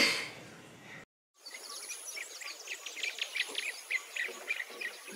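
Birdsong: a quick, busy run of short high chirps and tweets over a thin, steady, high insect-like whine. It starts abruptly after a moment of dead silence.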